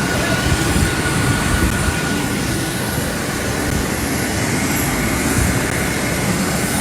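Aircraft engines running on a landed airplane: a loud, steady rumble with a thin steady whine on top.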